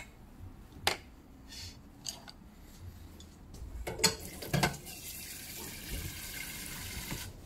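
A few knocks of cookware, then a kitchen tap running steadily for about three seconds and cut off suddenly near the end.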